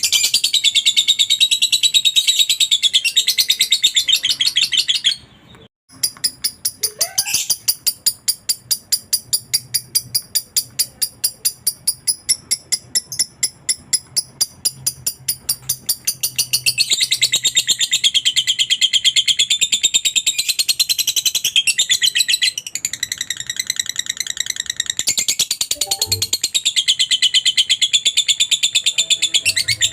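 Lovebird's long 'ngekek' chatter: a rapid, unbroken string of shrill chirps, with a short break a little under six seconds in.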